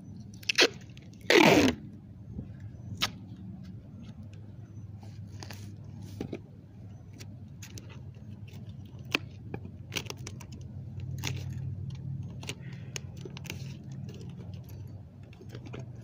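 Close handling noise as a plastic Pine Sol bottle rig is picked up and moved on the grass near the microphone. A sharp click comes first, then a loud falling scrape about one and a half seconds in, then scattered clicks and crinkles of plastic over a steady low hum.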